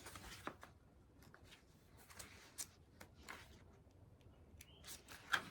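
Faint, scattered small ticks and rustles of paper being handled: the pages of an instruction booklet being turned.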